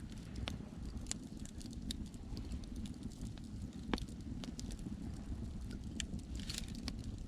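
Wood fire crackling, with irregular sharp pops (the strongest about four seconds in), over a steady low rumble of sea waves.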